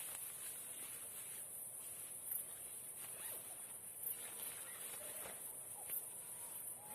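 Insects, such as crickets, trilling steadily at a very high pitch, swelling slightly about every two seconds, with scattered small rustles and clicks.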